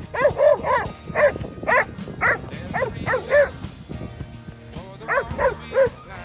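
Young working dog barking repeatedly at cattle as it drives them, about a dozen short barks in quick runs with a break around four seconds in. This is the working bark used to move stock. Music plays underneath.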